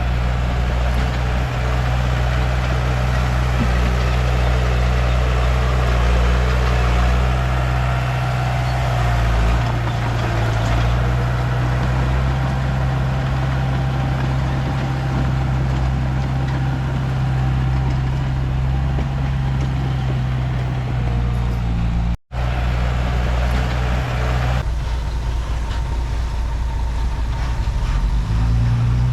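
Komatsu D31P bulldozer's diesel engine running steadily with a deep, even hum. It briefly cuts out about two-thirds of the way through, then carries on.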